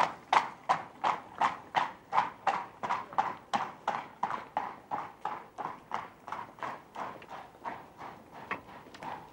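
Hooves of a pair of carriage horses clip-clopping on a street in a steady rhythm, about three strikes a second, fading as the horse-drawn carriage moves away.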